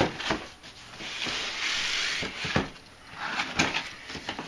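Cardboard boxes being handled and shifted. A scraping rustle runs for over a second, starting about a second in, among several knocks of cardboard against cardboard.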